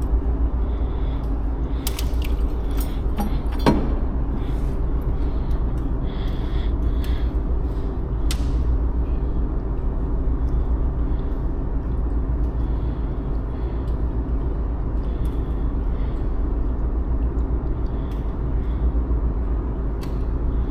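A steady low rumble with a faint hum above it, broken by a few short clicks and knocks about two to four seconds in and again near eight seconds.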